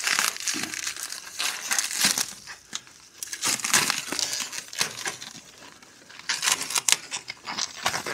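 Plastic bubble wrap crinkling and tearing in irregular bursts as it is pulled off a snowblower's drive lever by hand.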